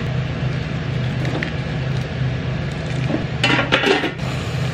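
Rainbow sprinkles being scooped from a stainless steel topping bin: a brief clatter of the scoop on metal and sprinkles rattling about three and a half seconds in, over a steady low hum.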